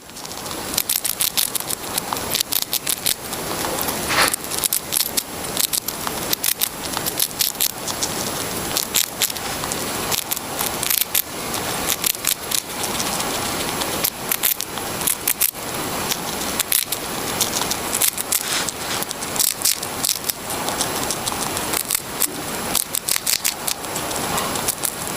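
Someone munching a crunchy snack: a dense, unbroken run of crisp crunches and crackles.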